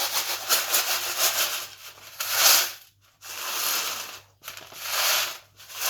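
Bird seed swishing and rattling around in a tin foil tray as the tray is shaken, in swells of about a second each, with brief pauses about three and about four and a half seconds in.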